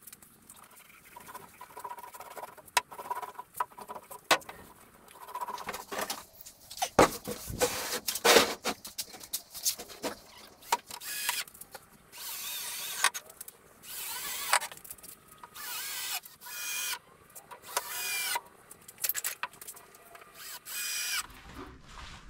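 Cordless drill running in a run of short bursts, each about a second long, as it bores into a plywood tabletop on a pallet-wood frame. Scattered knocks and clicks come before it in the first half.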